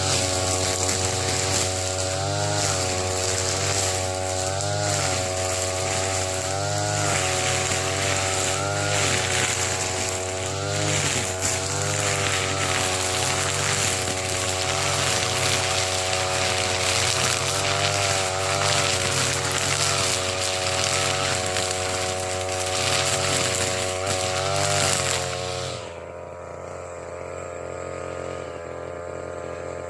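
TB33 brush cutter's two-stroke engine running under load while cutting thick grass, its pitch swelling and easing about every two seconds with the swings. Near the end it drops suddenly to a steady idle and the cutting noise stops.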